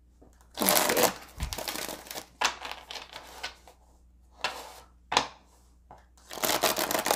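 Tarot cards being shuffled by hand: papery rustling and flicking in several runs, a long one about half a second in, two short bursts in the middle, and another run near the end.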